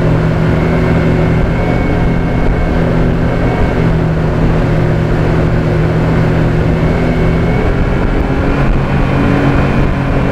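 Honda 40 hp four-stroke outboard running steadily at speed, trimmed up high to the edge of ventilating, with a rough low rumble under the engine note. The engine note shifts about eight seconds in as the boat swerves.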